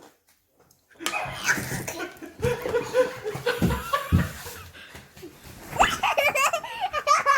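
Children laughing hard, with a few dull thumps in the middle and high, squealing laughter near the end.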